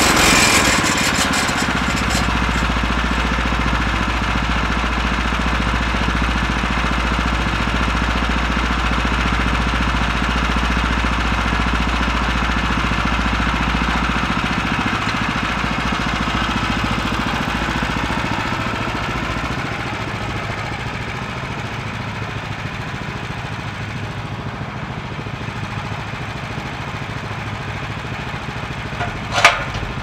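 Gas engine of a Woodland Mills HM126 portable bandsaw mill running steadily, growing a little quieter about two-thirds of the way through. A single sharp knock near the end.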